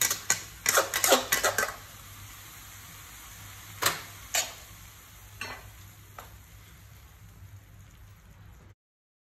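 Metal spatula clanking and scraping against a metal wok while stir-frying noodles and vegetables: a quick run of clanks in the first couple of seconds, two more about four seconds in and a few faint ones after. Under them runs a faint steady sizzle with a low hum, and the sound cuts off abruptly near the end.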